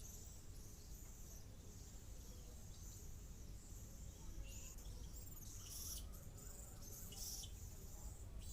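Faint outdoor ambience: a steady low rumble, with scattered short high-pitched chirps from small birds or insects repeating from about four seconds in.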